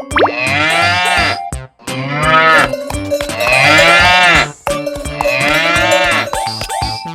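Cattle mooing: several long calls, one after another, over background music with a steady beat.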